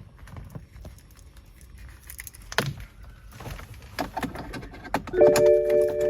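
A key on its keyring jangling and clicking as it is put into the ignition slot of a BMW E63 M6. About five seconds in, a steady hum of several tones starts as the car's electrics come on.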